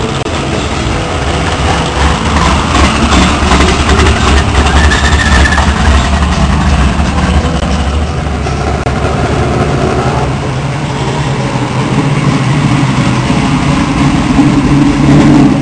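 Car engine idling with a loud, steady low rumble, picking up a little near the end.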